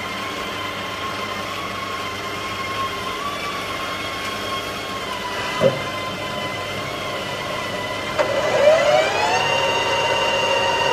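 Colchester Mastiff metal lathe turning a radius on a steel hammer face, with a steady high whine. There is a short knock a little before six seconds. After about eight seconds the whine grows louder and climbs in pitch, then holds steady at the higher pitch.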